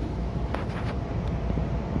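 Seibu 2000-series electric train running, heard inside the driver's cab: a steady low rumble of wheels and running gear, with a few faint clicks about half a second in.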